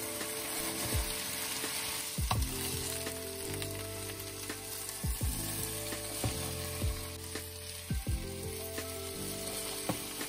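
Potato sticks sizzling as they fry in oil in a frying pan, with the scrape and knock of a silicone spatula turning them several times.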